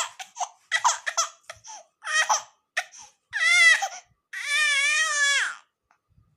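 A small child crying in a run of short sobbing cries, then two longer wavering wails, the last held for over a second. The child is upset by the sound of a pressure cooker whistle.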